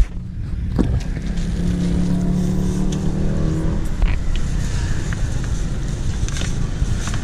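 A motor vehicle running: a steady low rumble, with a steady humming engine note for a couple of seconds in the middle.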